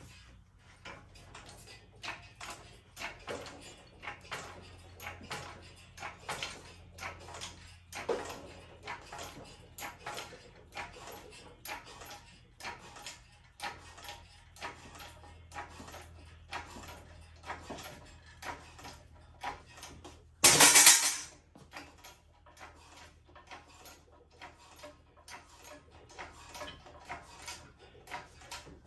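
A long run of sharp metallic clicks and clinks, two or three a second, with one much louder harsh noise lasting under a second about twenty seconds in.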